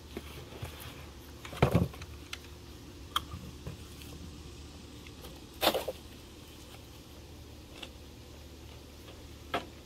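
Handling noise from a faux wood window blind and its cardboard box as the blind is lifted out and set down: a few separate knocks and faint rustles and ticks, the loudest knock about halfway through.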